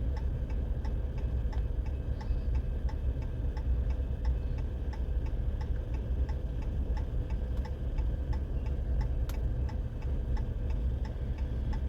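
Long freight train rolling past with a steady low rumble, under a light, even ticking of about three ticks a second.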